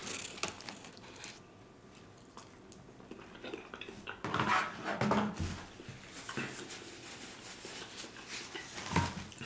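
Close-up eating sounds: a person chewing food and smacking their lips between bites, with the loudest sounds about halfway through.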